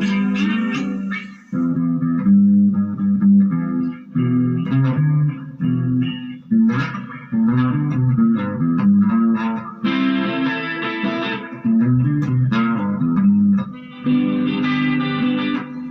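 Electric guitar played through a Marshall MG15GFX combo amp with its chorus effect on: a run of notes and chords in short phrases, with brief breaks between them.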